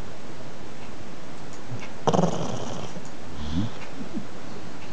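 A pug snoring: one loud snore about two seconds in, then a shorter, lower one about a second and a half later, over a steady background hiss.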